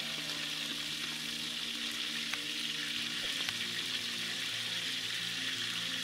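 Whole quail deep-frying in hot oil in an aluminium pot, a steady sizzle with a couple of faint clicks midway.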